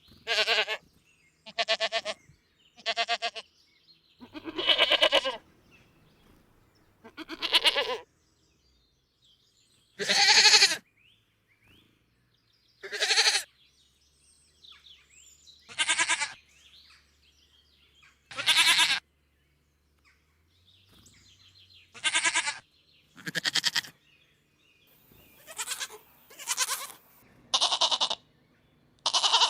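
Domestic goats bleating: a string of about fifteen short, wavering calls, one every couple of seconds, coming closer together near the end.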